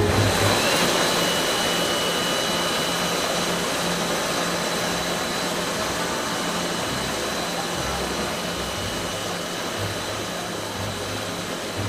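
Steady running noise of a PE pipe extrusion line's machinery: a broad hiss with two high steady whines, one of them rising in pitch and settling just after the start. It slowly grows quieter.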